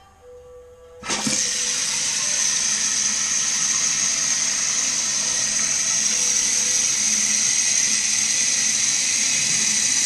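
A newly installed toilet fill valve opens about a second in and starts refilling the empty tank: a sudden, then steady, loud hiss of water rushing through the valve.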